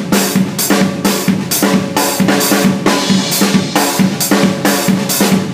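Drum kit playing an up-tempo soca groove: a steady four-on-the-floor bass drum under snare strokes and ghost notes, in an even, unbroken rhythm.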